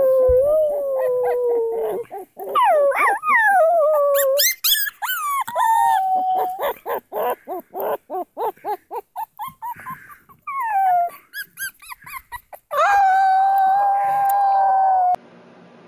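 Puppy howling: several wavering howls that slide down in pitch, a run of short yips and whimpers in the middle, then one long steady howl near the end that cuts off suddenly.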